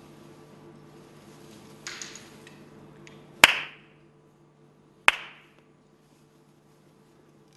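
Two sharp hand claps about a second and a half apart, each with a short echo: a Shinto priest's ritual clapping (kashiwade) before the shrine. A short rustle comes about two seconds in.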